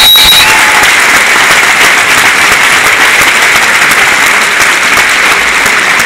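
Audience applauding, a dense and steady clapping; a singer's last held note cuts off in the first half-second.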